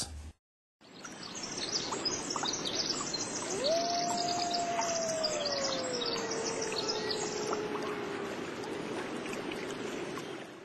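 Outdoor nature ambience fading in after a brief silence: birds chirping and twittering high up over a steady rushing hiss. About three and a half seconds in, one long low call rises quickly, then slides slowly down in pitch over several seconds.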